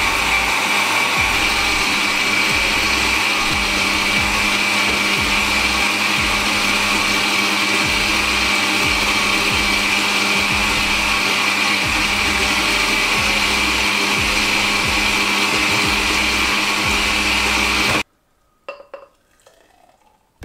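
Countertop jug blender running steadily with a high whine, blending a thick milk, banana and ice-cream protein shake. It stops suddenly near the end, followed by a few faint knocks.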